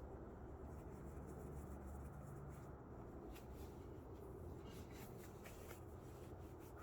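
Faint scratching and rubbing with scattered light ticks from a new pair of leather sneakers being handled, over a low steady hum.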